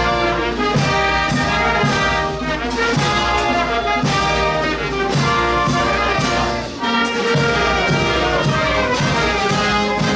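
Brass band music, trumpets and trombones playing a tune over a steady beat.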